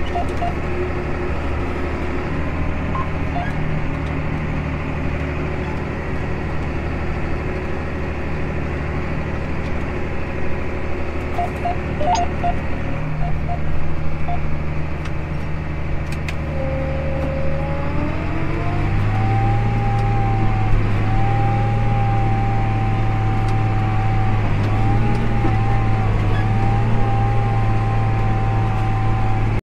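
Tractor engine running steadily, heard from inside the cab while pulling a grain drill through the field. About two-thirds of the way through, the engine speed picks up and a whine rises in pitch, then holds steady.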